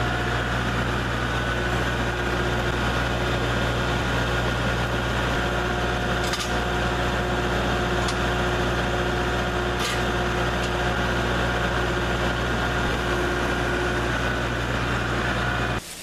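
Kubota MX tractor's diesel engine running steadily at a constant speed, with two brief metallic clicks about six and ten seconds in. The engine sound cuts off abruptly just before the end.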